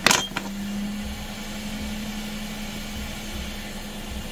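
A sharp click right at the start, then the steady hum of a hot air rework gun's blower left running just after it has desoldered a chip.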